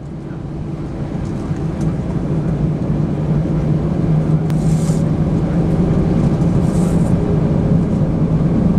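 Cabin noise inside an Airbus A320-214 with its CFM56 jet engines at idle: a steady low hum under a hiss of air, growing louder over the first few seconds. Two short hissing sounds come near the middle.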